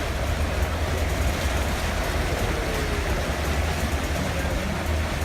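Steady rushing noise of heavy rain and floodwater, over a deep, even rumble.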